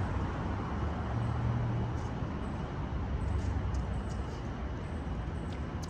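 Steady city traffic noise, a low rumble with a hum in it, with a few faint ticks over it.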